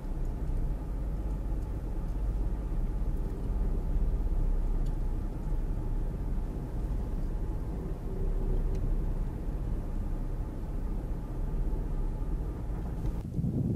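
Vehicle driving on beach sand, heard from inside the cabin: a steady low rumble of engine and tyres.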